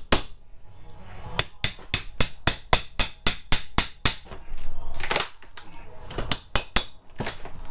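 Claw hammer striking the head of a steel flat pry bar in quick metal-on-metal blows, about four a second. The bar is being driven under a heavily glued top layer of plywood subfloor. A brief rasping noise comes about five seconds in, and a few more blows follow near the end.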